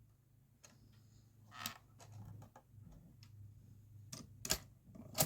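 Motorized Lego boxcar running along plastic Lego track: a faint low hum with scattered sharp clicks.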